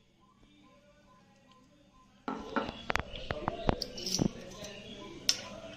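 Metal spoon clinking against a glass bowl of chocolate ganache as honey is spooned in: a quiet start, then about two seconds in a run of sharp, irregular clicks.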